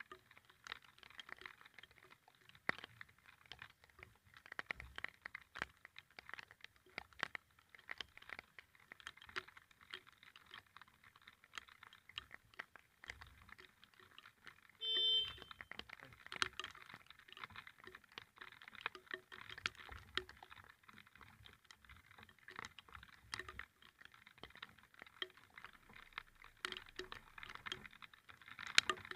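Raindrops pattering irregularly on a nearby hard surface, a dense run of small taps. About halfway through, a short beep sounds once.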